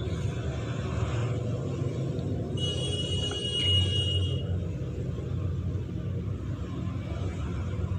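A steady low hum, with a high, steady ringing tone for a little under two seconds about two and a half seconds in.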